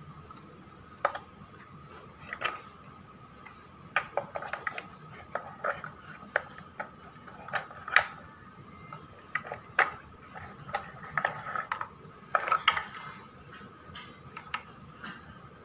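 Irregular light clicks and taps of a handmade PVC miniature truck cab being handled, its small hinged door and parts knocking, with the loudest click about halfway and a cluster a few seconds before the end. A faint steady high tone runs underneath.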